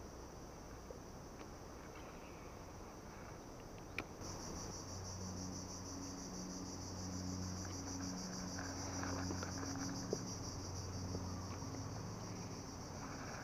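A chorus of insects, a steady high-pitched buzz that pulses evenly and grows louder about four seconds in. There is a single sharp click near the same moment, and from about five seconds in a low hum comes and goes underneath.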